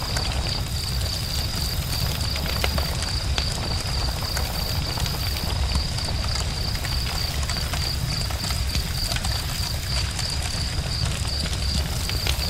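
Campfire crackling, with frequent small irregular pops over a steady low rumble. A steady high-pitched trill runs throughout.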